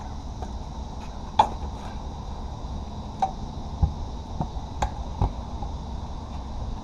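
Kick scooter on concrete sidewalk: a steady low rumble of the wheels rolling, with a handful of sharp clicks and knocks from the deck and wheels, the loudest about a second and a half in.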